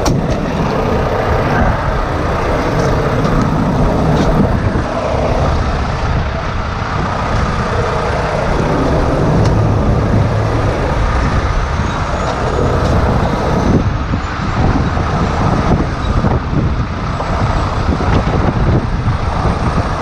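Heavy diesel wrecker truck running, its engine mixed with gusty wind rumbling across the microphone.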